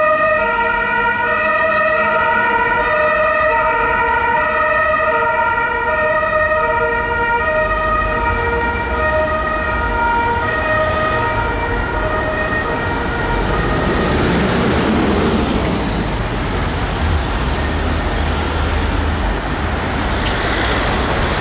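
Fire engine's two-tone horns sounding their alternating high-low notes, stopping about two-thirds of the way through. After that comes the rumble of road traffic.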